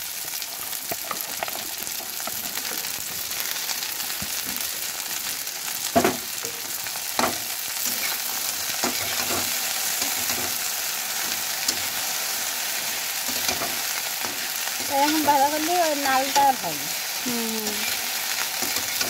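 Chopped okra sizzling in hot mustard oil in a karahi, stirred with a metal spatula that scrapes the pan and knocks against it twice about six and seven seconds in. A person's voice comes in briefly near the end.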